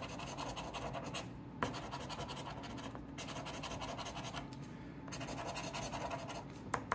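A coin scratching the coating off a paper scratch-off lottery ticket in rapid back-and-forth strokes, in runs broken by a few short pauses.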